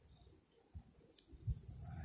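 A sleeping woman snoring: a quiet pause between breaths with a few faint clicks, then the next loud snore starts near the end.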